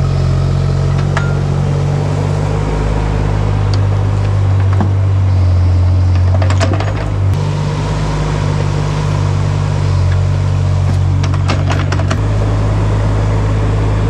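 Kubota U17 mini excavator's three-cylinder diesel engine running steadily as the machine digs and dumps soil, with a few short clatters from the bucket and falling dirt.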